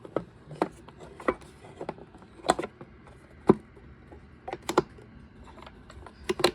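Irregular clicks and knocks from hard parts of an upright vacuum cleaner being handled, about a dozen sharp taps spread unevenly over several seconds.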